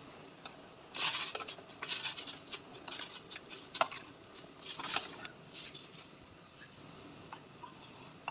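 Kitchen utensils clinking and scraping against cookware in a handful of short bursts, the loudest about a second in, then a few faint clicks.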